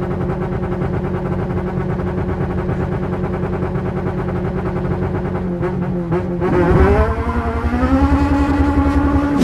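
Honda Civic Type R EP3's K20 2.0-litre four-cylinder, heard from inside the cabin, held at steady high revs for several seconds as launch control holds it. After about six and a half seconds the revs dip briefly, then climb and hold steady again, higher.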